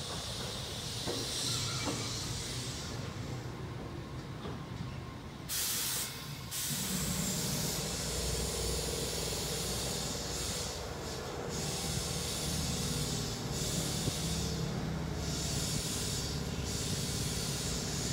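Tobu Noda Line electric commuter train moving slowly and coming to a stop, with a short, loud hiss of released air about six seconds in, then a steady low hum from the standing train.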